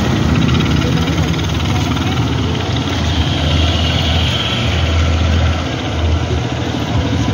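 Motorcycle engine running steadily at low speed, heard close up from the rider's seat.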